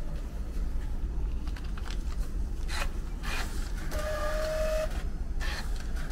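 Low, steady rumble of street traffic with a few short rustles. A flat electronic tone sounds about four seconds in, held for just under a second, and starts again at the very end.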